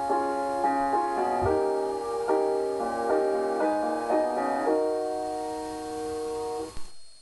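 Piano-type keyboard playing an instrumental passage of chords and notes with no voice, cut off abruptly near the end.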